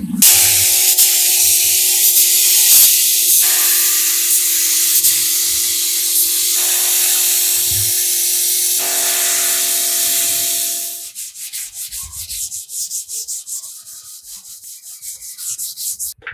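Abrasive sanding: a loud, continuous scraping at first, then about two-thirds of the way through it turns into quieter, quick back-and-forth strokes about four a second, like sanding by hand.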